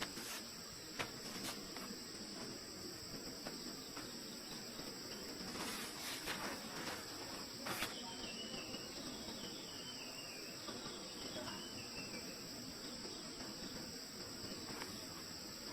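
Steady high-pitched insect chorus, with a few sharp clicks or knocks, most of them between about six and eight seconds in, and a faint wavering call in the middle.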